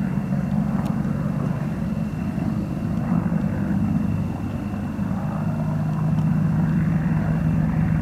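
AH-64 Apache attack helicopter in flight on approach: the main rotor beats rapidly over the steady drone of its twin turboshaft engines, with a thin steady high whine. It grows a little louder about five seconds in as it turns toward the listener.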